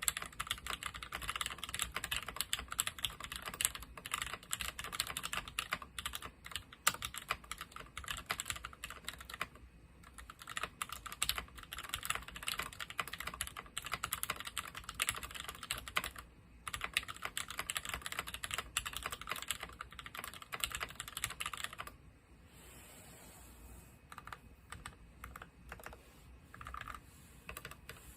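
Fast, steady typing on a Discipline65 mechanical keyboard with lubed ZealPC Tealios 67g linear switches, ABS keycaps and an FR4 plate. It breaks off briefly about a third of the way in and again past halfway. From about 22 seconds in, the keystrokes come fewer and quieter.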